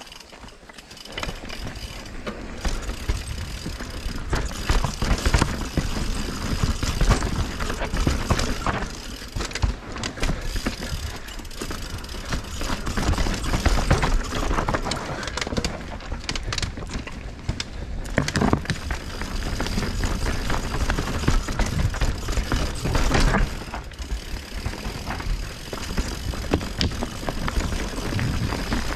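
Mountain bike ridden fast down a dry, rocky, rooty dirt trail: tyres rolling and crunching over dust and stones, with the bike rattling and knocking sharply over rocks and roots.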